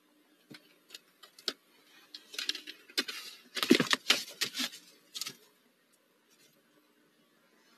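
Owlet clambering back into its wooden nest box through the entrance hole: a run of clicks, scrapes and bumps from talons and body on the wood, loudest about three to four and a half seconds in, then quiet.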